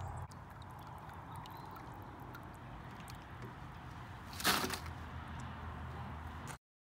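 Hot boil water sloshing and trickling as crawfish are scooped out of the boil pot, with a louder splash about four and a half seconds in, over a steady low hum. The sound cuts off suddenly near the end.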